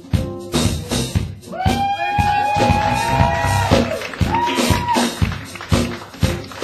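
Live band playing a groove: regular drum hits over a bass line, with a few long held high notes that slide up into pitch in the middle.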